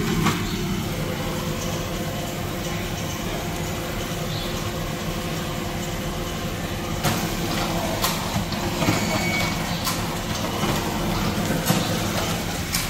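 Office laser printer running: a steady hum, with a few sharp clicks in the second half.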